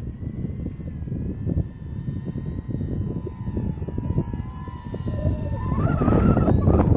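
Electric motor and propeller of an Easy Glider RC model plane whining steadily, its pitch rising and getting louder about two-thirds of the way in. Heavy wind noise rumbles on the microphone throughout.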